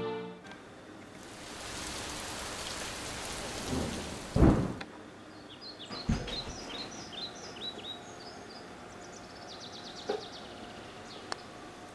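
Rain falling, with a deep rumble of thunder about four and a half seconds in and a second, shorter rumble soon after. The rain then stops and small birds chirp, quick falling chirps repeated over and over, with a short rapid trill later.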